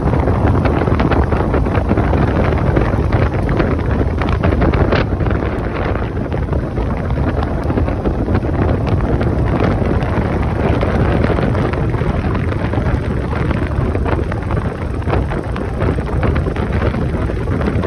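Wind noise rushing and buffeting over the microphone of a motorcycle being ridden at speed, with the motorcycle's engine running steadily underneath.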